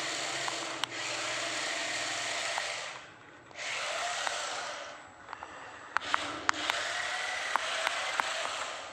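Remote-control toy car's small electric drive motors and gears whirring as it drives and spins, in three runs with short pauses between. Sharp clicks and knocks come through, mostly in the last run.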